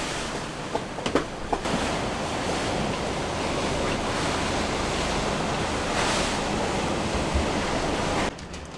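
Strong wind blowing across the microphone over a rough, breaking sea: a steady rushing noise that drops away abruptly near the end.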